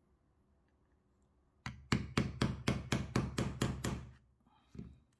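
Small hammer rapidly tapping a slotted roll pin, held in needle-nose pliers, into the base hole of a folding charging handle: about a dozen quick, sharp taps, some five a second, starting about a second and a half in, to get the pin started.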